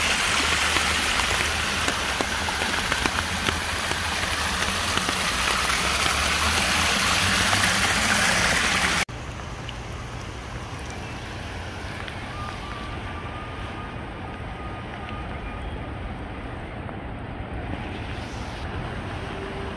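Rain and stormwater runoff cascading down stone park steps in a loud, even rush. About nine seconds in, a sudden cut brings a quieter, lower, steady rush of a swollen river in flood.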